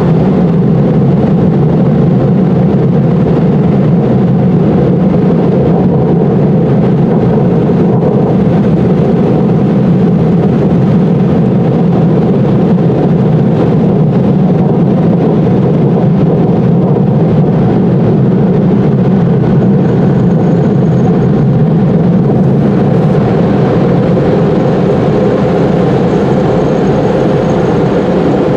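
Automatic car wash air dryer blowers running, a loud steady blowing that holds unbroken throughout.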